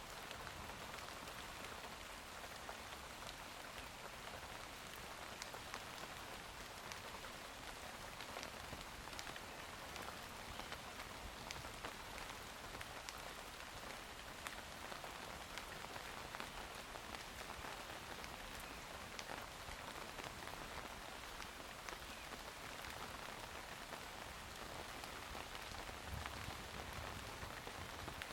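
Steady summer rain falling, with many separate drops ticking on surfaces close by.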